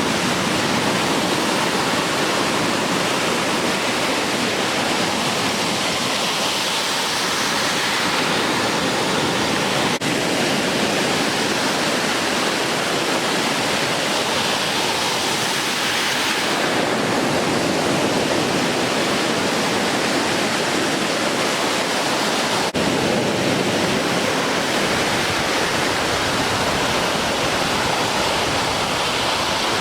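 Ocean surf breaking, a steady rush of waves with no let-up, cut off twice by brief clicks from edits.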